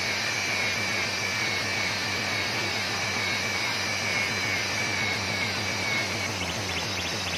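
Steady mechanical drone of a running engine, with a faint high whine that slowly falls in pitch.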